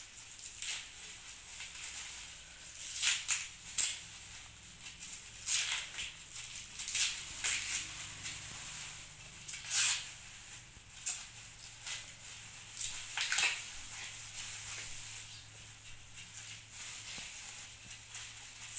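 Dry, papery red-onion skin crackling and plastic gloves crinkling as the onion is peeled and its outer layer pared off with a knife, in short irregular rustles and crackles.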